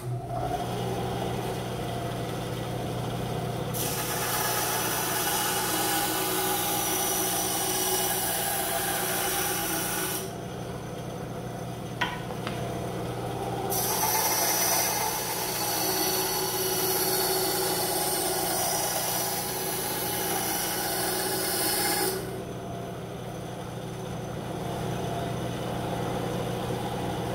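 Ryobi BS904G 9-inch benchtop bandsaw switched on, its motor and blade running with a steady hum. Twice the blade cuts through softwood, adding a hissing rasp over the hum: the first cut a few seconds in, the second after a short pause midway. The saw runs free again near the end.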